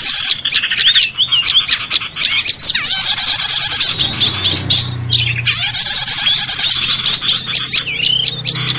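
Bird-luring call recording: many small birds chirping and twittering at once in dense, rapid, high-pitched calls and trills. A low steady hum joins about four seconds in.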